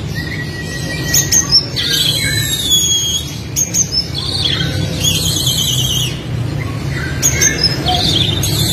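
Oriental magpie-robin (kacer) singing loudly in a stream of varied phrases: clear whistles, quick repeated trill notes and sharp chips, over a steady low background hum.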